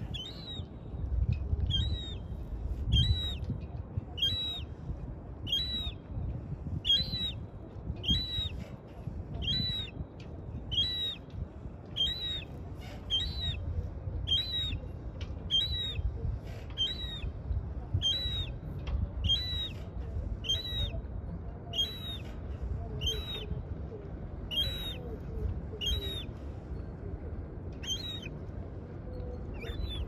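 Juvenile gull giving thin, high whistled begging calls, each slightly rising then falling, repeated about once a second over a low steady rumble.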